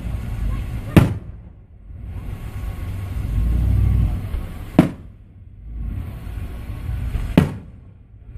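Fireworks exploding: three sharp bangs of bursting shells, about a second, five seconds and seven and a half seconds in, over a low rumble, with the background dropping out briefly after each bang.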